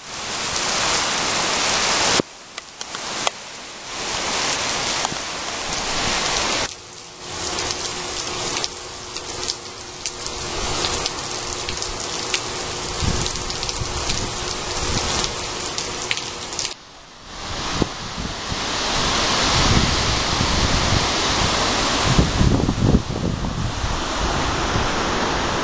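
Heavy hurricane rain pouring and hissing on pavement, dotted with the patter of drops, cutting off and restarting abruptly a few times. In the last part, strong wind gusts buffet the microphone over the rain.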